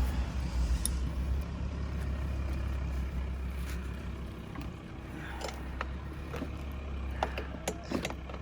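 A vehicle engine idling with a steady low hum, a little louder for the first second or so, with a few light clicks and knocks in the second half.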